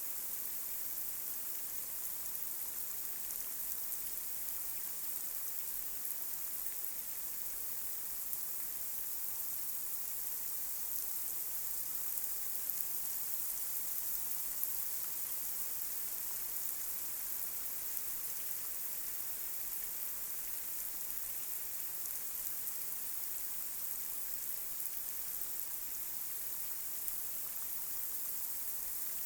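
Light rain falling on a street: a steady, even hiss with scattered small drop ticks.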